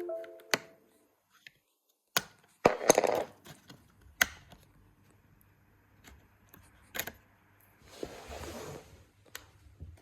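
Handling noise: scattered sharp clicks and taps, with a short rustling, scraping burst about three seconds in and another near the end.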